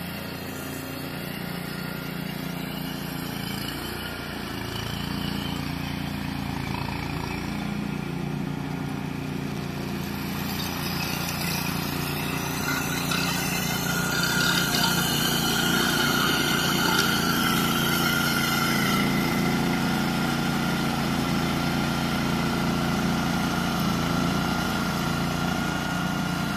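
Mower engine running steadily while cutting through tall, dense weeds. It grows louder about halfway through as the machine comes close.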